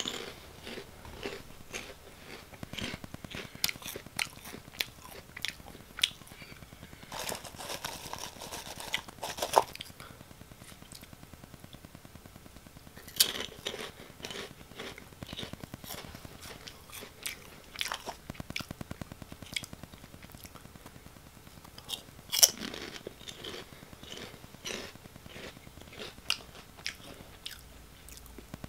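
Close-miked chewing of crunchy Oh!Gamja potato snack sticks: irregular crisp crunches, heavier in a few denser runs of chewing.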